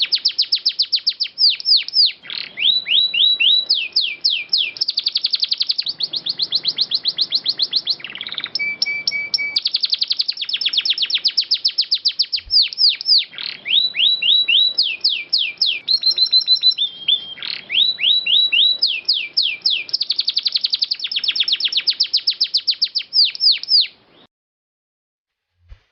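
Domestic canary singing a long song of fast rolling trills and rapidly repeated sweeping notes, stopping about 24 seconds in.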